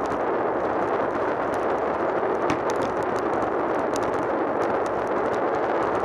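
Steady wind rush over a bicycle-mounted camera's microphone, mixed with tyre noise on tarmac as the road bike rides at speed. Sharp, irregular ticks and rattles come through as the bike runs over the road surface.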